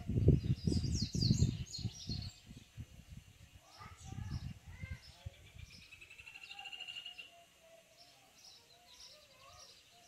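Papa-capim seedeater (yellow-bellied seedeater) singing: quick high chirps and warbled notes, with a buzzy rising trill about six seconds in. A low rumble of noise is the loudest sound over the first two seconds.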